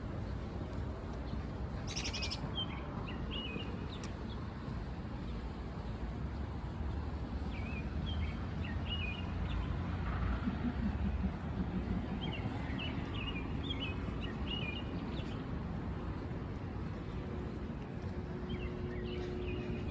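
Small birds chirping in short scattered bursts over a steady low rumble of outdoor background noise.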